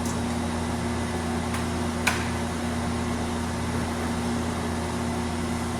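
Steady electric motor hum holding fixed low tones, with one light tap about two seconds in.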